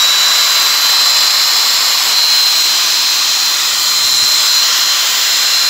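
Hitachi 100 V corded electric drill with a 13 mm chuck running free at full speed. Its motor gives a steady high whine over a hiss from the cooling fan.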